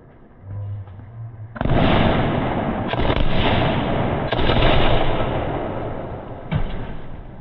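Multi-shot skyshot firework bursting overhead, heard slowed down. A sudden loud burst comes about a second and a half in, and further bursts follow about three and four and a half seconds in and again near the end. The sound runs on between them and fades gradually.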